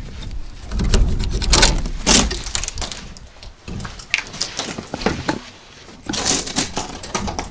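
Polycarbonate greenhouse door being opened: the plastic panels and frame clatter, with a couple of sharp knocks about one and a half and two seconds in. There is another spell of rattling and rustling near the end.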